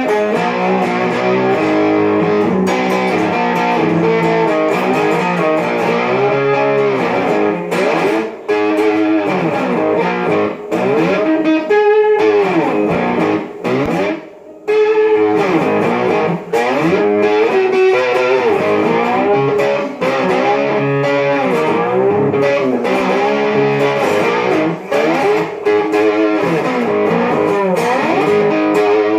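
Homemade tin-box guitar, a Jack Daniel's tin body with a cigar-box-guitar neck, played electrically through its pickup. Notes glide up and down in pitch throughout, with a few short breaks.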